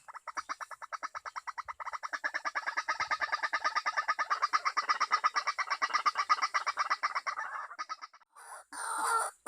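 A bird's rapid chattering trill, an even stream of about ten short notes a second that grows louder about two seconds in and stops near the end. A short rougher sound follows it.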